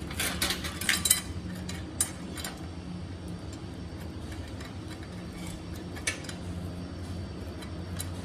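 Sharp metallic clinks and taps, several in the first second and single ones about 2 and 6 seconds in, over a steady low hum.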